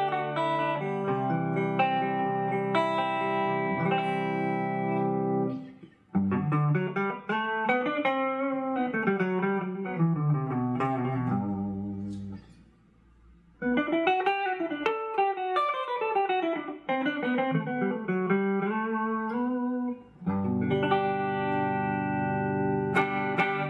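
Shelter USA SG-style electric guitar with humbucking pickups, played through an amp on a clean tone with the bridge pickup selected. It opens with held chords, moves into single-note lines with string bends, pauses briefly about halfway, and ends on ringing chords.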